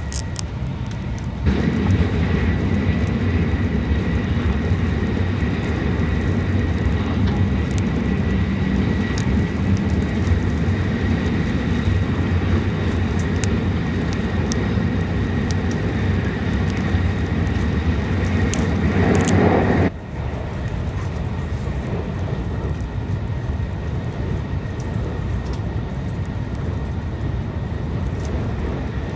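Shinkansen bullet train running at speed, heard inside the passenger cabin as a steady rumble and rush. The rumble jumps louder about a second and a half in, swells, and drops off abruptly about twenty seconds in, then carries on at a lower level.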